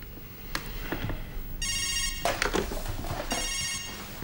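Electronic telephone ring: two short warbling bursts, the first about one and a half seconds in and the second about a second later.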